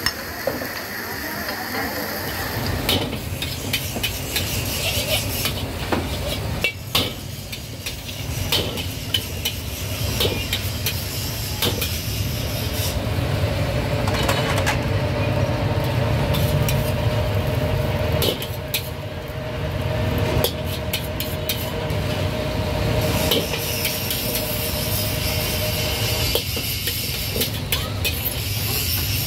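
Street-food stall clatter: repeated clinks and knocks of dishes and cooking utensils over a steady low rumble, with a steady hum joining partway through and stopping near the end.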